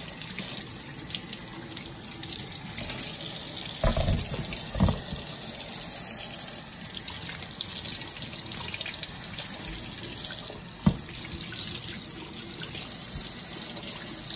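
Kitchen tap running steadily into a sink while fresh fruit is washed under it. A few knocks break through, the sharpest about eleven seconds in.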